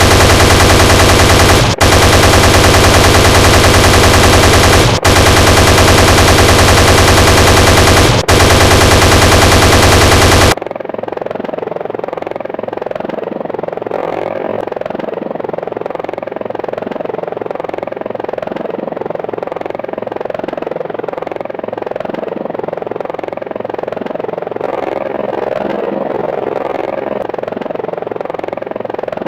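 Attack-helicopter chain gun sound effect firing in long continuous bursts, with a brief break every three seconds or so. The gunfire cuts off abruptly about ten seconds in, leaving a helicopter's rotor and engine running steadily and more quietly.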